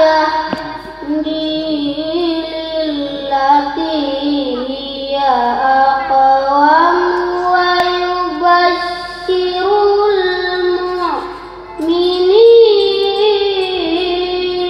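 A child chanting a Qur'an reading in the melodic tilawah style, with long held, ornamented phrases that glide up and down and short breaths between them.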